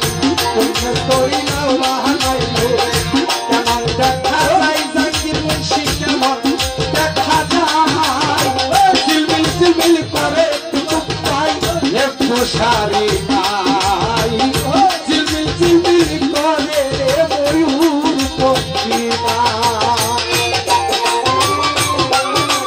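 Bengali Baul folk music played live: a wavering melody line over a fast, dense rhythm of hand drum and rattle.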